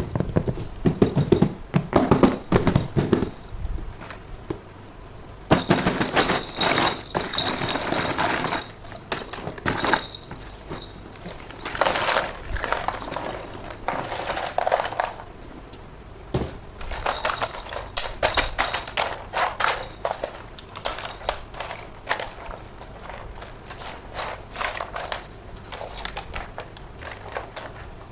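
Toy kitchen set pieces and their packaging being unboxed by hand: a steady run of plastic clicks and taps, with stretches of crinkling plastic packaging.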